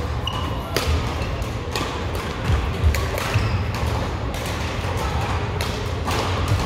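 Badminton rally: sharp racket-on-shuttlecock hits about once a second, over a steady low hum and faint voices from the busy hall.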